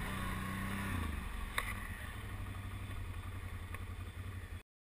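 Can-Am ATV engine running low and steady with a rapid pulsing exhaust, with a couple of light clicks over it; the sound cuts off suddenly about four and a half seconds in.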